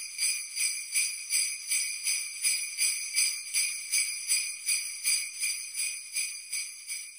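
Jingle bells shaken in a steady rhythm, nearly three shakes a second, getting quieter near the end.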